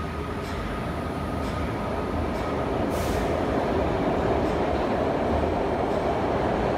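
Kawasaki-built SEPTA B-IV subway train starting to pull away from the platform. A steady tone and a few clicks give way to a brief hiss about three seconds in, then the rumble of motors and wheels grows louder as the train gathers speed.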